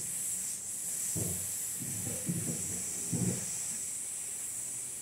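Steady high-pitched hiss of the recording's background noise, with a few short, faint low sounds between about one and three and a half seconds in.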